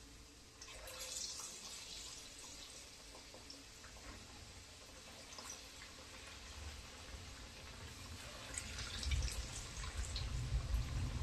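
Battered potato, onion and cauliflower pakode deep-frying in hot oil: a steady sizzle with scattered crackles. A low rumble comes in over the last few seconds.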